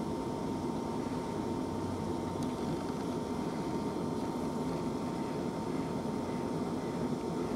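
South Western Railway Class 450 Desiro electric multiple unit running slowly over pointwork toward the listener: a steady rumble, with a faint constant high tone throughout.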